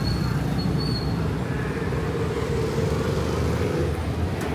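Road traffic on a city street: a steady rumble of passing vehicles, with an engine hum swelling in the middle. A faint high tone sounds briefly in the first second.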